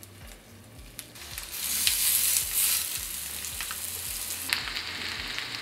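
Quinoa and spinach veggie patties sizzling as they fry in hot coconut oil in a skillet. The sizzle is faint at first and builds up about a second and a half in, then holds steady. It is the little sizzle wanted when the patties go in, a sign the oil is hot enough.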